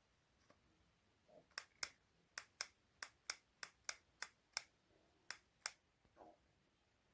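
A series of about a dozen sharp, crisp clicks, irregularly spaced at roughly two to three a second, in an otherwise quiet room.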